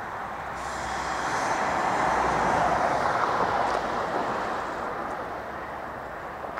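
A vehicle passing close by, its rushing noise swelling to a peak about halfway through and then fading.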